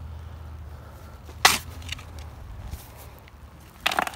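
Shovel scooping soil and tossing it into the hole around a plastic septic tank riser during backfilling: two short, sharp scrapes of the blade in the dirt, the louder about a second and a half in and another near the end, over a low steady rumble.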